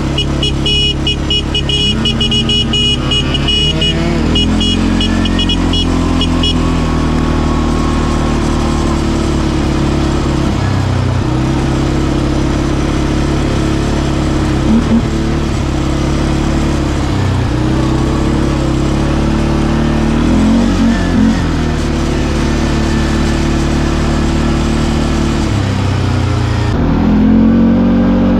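CFMoto ATV engine running while riding along a dirt track, its speed dropping and climbing again every few seconds as the throttle is eased off and reopened.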